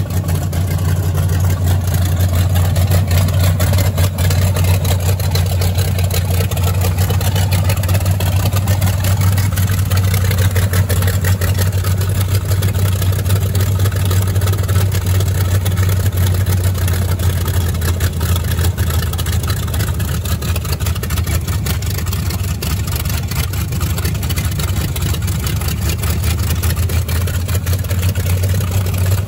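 The 1937 Dodge hot rod truck's engine idling steadily on its freshly refreshed Quadrajet carburetor.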